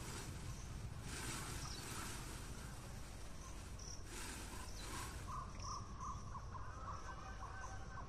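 Insects chirping steadily in a high register. There are a few brief bursts of noise, and from about five seconds in a run of short repeated chirps in a lower register.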